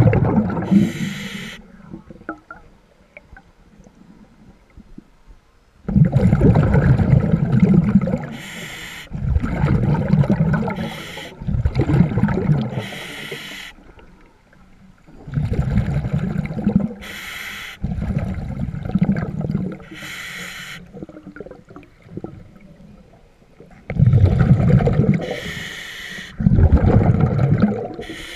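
Scuba diver breathing through a regulator underwater: repeated long bubbling rumbles of exhaled air, each cycle marked by a short hiss of the regulator on the inhale, with a few seconds of pause between some breaths.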